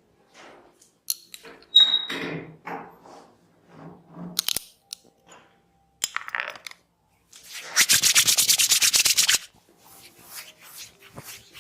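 Hands rubbing hair and scalp in a head massage: scattered rubs and rustles, then a fast, loud run of rubbing strokes, about a dozen a second, for about two seconds past the middle.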